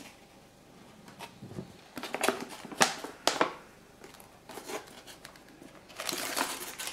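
Plastic lid being pressed onto a plastic fermenting bucket: a quick string of sharp plastic clicks and knocks about two to three and a half seconds in, then a rustle near the end.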